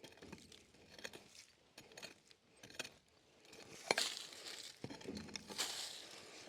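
Scattered light clicks and rustling, with one sharp knock about four seconds in.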